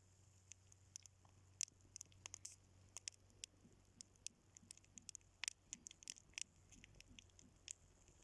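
Faint crackling of a burning heap of matches: irregular sharp pops and ticks, several a second, over a steady low hum.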